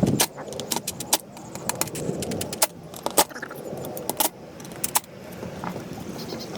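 Irregular clicking and clattering of small tools and plastic and metal trimmer parts being handled during reassembly.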